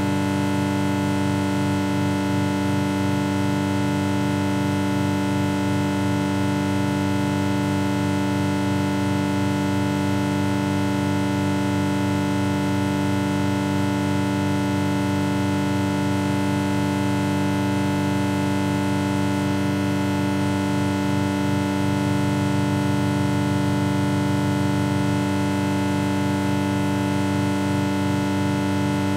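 Synthesized pulse sound effect: a dense, steady chord of held electronic tones over a fast-pulsing low buzz. About three quarters of the way through, the low pulsing briefly smooths out and swells slightly before resuming.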